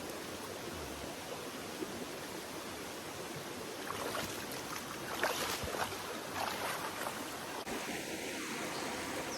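Stream water flowing in a steady rush, with a few short splashes or knocks in the second half.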